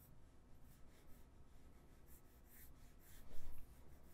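Faint, quick sketching strokes: a pen scratching across the drawing surface a few times a second, busier in the second half. A brief louder low bump comes a little past three seconds in.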